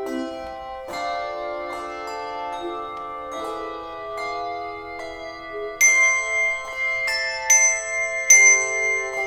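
Instrumental closing music: chords of struck, bell-like notes that ring on and overlap, getting louder about six seconds in.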